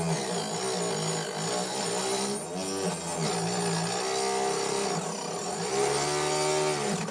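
Homemade table saw's small electric motor spinning its blade while a wooden strip is fed through it. The motor's pitch dips and recovers several times as the wood loads the blade.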